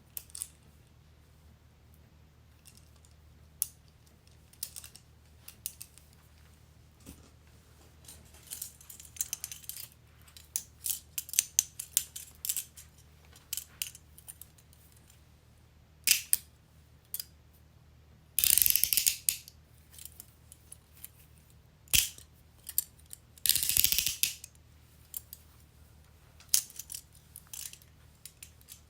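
Metal handcuffs being worked: scattered clicks and light metallic rattles, with two fast runs of ratchet clicks, about 18 and 23 seconds in, as a cuff's swinging arm is run through its ratchet.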